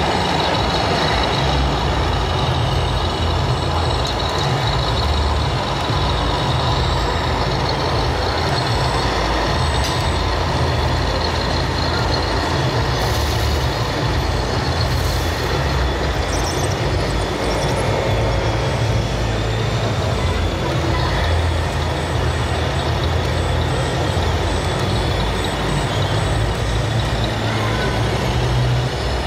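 Simulated diesel engine rumble from the sound modules of radio-controlled model construction machines and trucks, running steadily. Two short hisses come about 13 and 15 seconds in.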